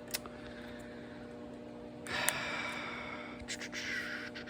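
A person breathing out heavily, a breathy hiss about two seconds in followed by a few shorter breaths, with a small click near the start and a steady electrical hum underneath.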